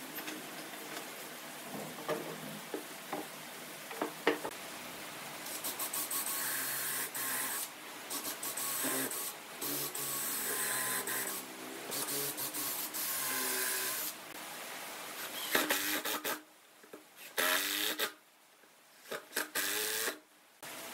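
Small electric power tool working wood, its motor whine running in short segments that start and stop abruptly, the pitch bending now and then under load.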